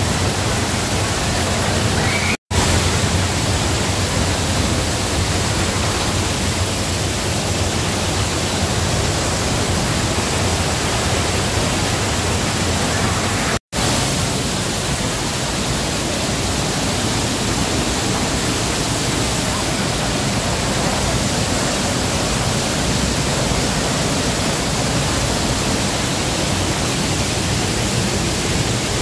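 Waterfall, water pouring and splashing in a steady, even rush of noise, broken twice by a split-second dropout.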